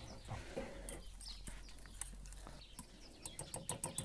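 Wire whisk clicking against a stainless steel saucepan as a melting cheese sauce is stirred; a quick run of regular clicks, about six a second, starts about three seconds in.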